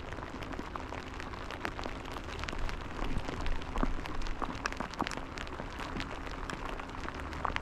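Steady rain falling, with many individual drops striking close by as short sharp ticks over an even hiss.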